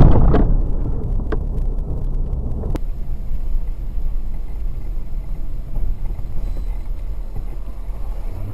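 Steady low road and engine rumble inside a moving car, picked up by a dashcam microphone. At the very start the tail of a much louder noise dies away, and a couple of sharp clicks come in the first three seconds.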